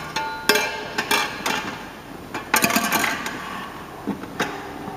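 Hands working an inner tube down into a dirt bike tire on a spoked wheel: rubber rubbing and shuffling, with several sharp knocks spaced through it.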